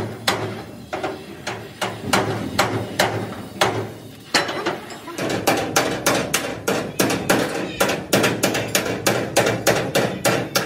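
Hammer blows on the metal frame of an excavator cabin, about two strikes a second. After a short pause around four seconds in, they come faster and more evenly, about three a second.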